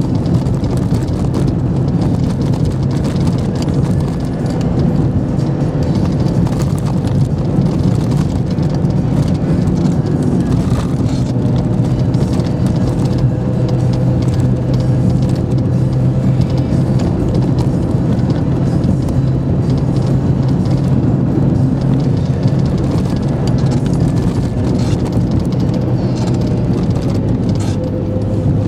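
Car engine running steadily under light load with tyre and road noise, heard from inside the cabin; the engine note shifts slightly near the end as the car slows into a bend.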